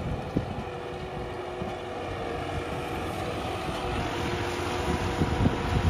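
New Holland 5620 CRD tractor's diesel engine running steadily under load at about 2000 rpm while it pulls a tine cultivator through the soil. Wind rumbles on the microphone near the end.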